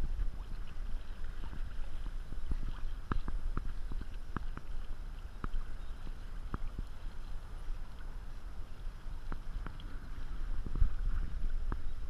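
Small waves lapping and slapping against the hull of a plastic sit-on-top kayak, giving irregular sharp knocks over a steady low rumble of wind on the microphone.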